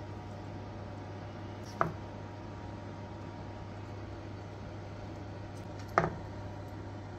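A metal fork strikes a steel frying pan twice, about four seconds apart; each is a short, sharp clink with a brief ring. A steady low hum runs underneath.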